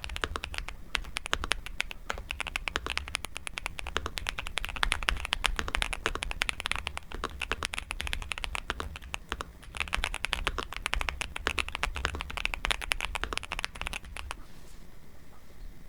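Fast, continuous typing on a Nuphy Gem 80 mechanical keyboard, a dense run of keystroke clacks that stops about a second and a half before the end.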